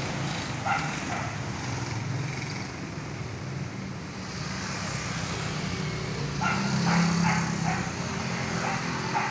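A dog barking: a couple of barks about a second in, then a quick run of barks past the middle. A steady low hum of traffic runs underneath.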